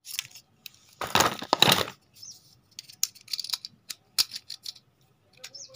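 Hands handling a pistol and its cartridge right against the phone microphone: a loud scraping rustle about a second in, then a string of light clicks and taps.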